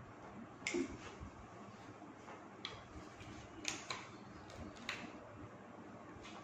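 A few faint, sharp clicks and taps, about four spread over several seconds, from a rubber balloon being stretched over the mouth of a plastic bottle and the bottle being handled on a table.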